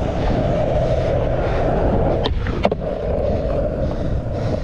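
Skateboard wheels rolling over rough asphalt, a steady rumble, with two sharp knocks a little after two seconds in.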